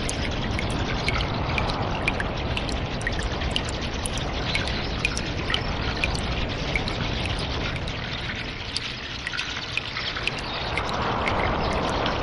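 Cave water ambience: a steady trickle and pour of running water, with many small drips on top. The flow eases off briefly and then swells louder near the end.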